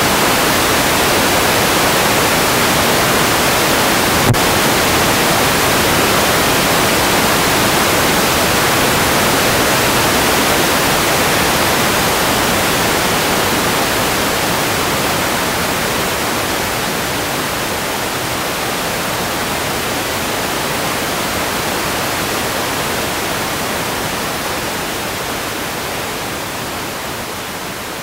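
A field of dirt-track sport modified race cars racing at full throttle, their engines blending into one dense roar with no single pitch, slowly fading over the last several seconds. A single sharp click about four seconds in.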